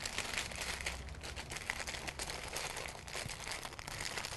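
Paper wrapping crinkling and rustling in a continuous run of small crackles as it is folded and twisted by hand around a muesli bar.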